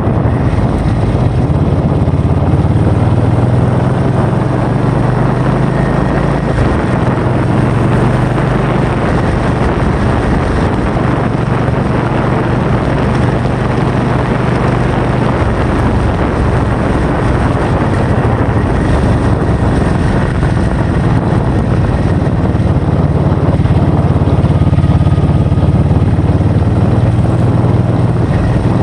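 Loud, steady wind noise on the microphone, with a low hum underneath.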